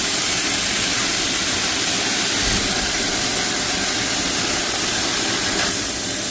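Tianchen CNC laser cutting machine running on 6 mm plate, giving a steady, loud hiss.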